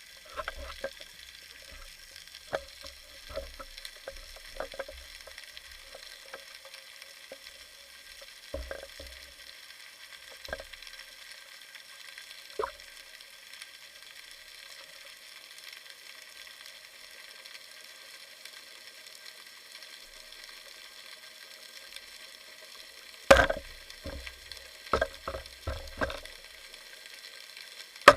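Underwater ambience: a steady crackling hiss with scattered clicks and knocks. A cluster of louder knocks starts about 23 seconds in and runs to the end.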